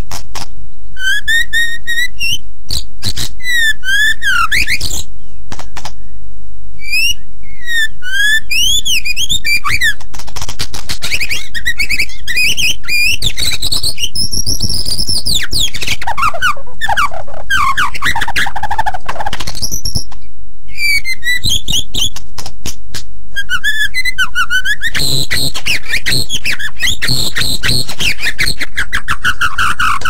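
White-rumped shama (murai batu) singing vigorously: a long, varied song of quickly repeated whistled notes, trills and sliding phrases, with short pauses between phrases.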